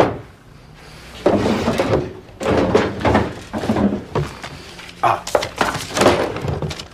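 Wooden desk drawer being rummaged through by hand and an envelope taken out: three bouts of knocking, sliding and rustling with short pauses between.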